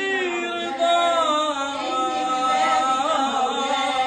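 A man singing an Arabic devotional chant (ibtihal) solo, holding long notes that waver in ornaments.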